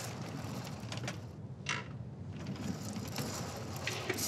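Ultrasonic rail flaw detector trolley worked along a steel rail to check a suspected crack: a low mechanical rumble and rattle with small clicks, and one sharp click a little under two seconds in.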